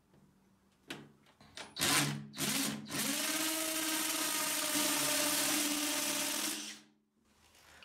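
Power drill boring into a plastered brick wall: two short bursts about two seconds in as the hole is started, then about three and a half seconds of steady drilling that cuts off sharply near the end.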